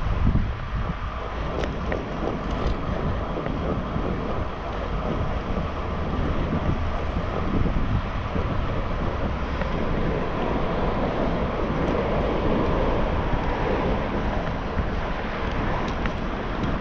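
Wind buffeting the camera microphone on a bicycle being ridden at speed, with a steady rumble of tyres on asphalt underneath.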